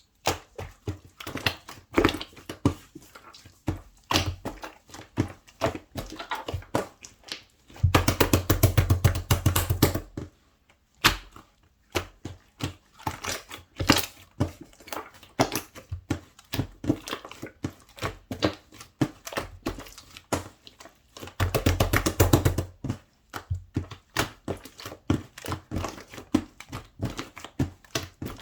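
Slime being squeezed and poked by hand, giving rapid sticky clicks and pops, with two louder, denser bouts of squelching, about a third of the way in and again about three quarters through.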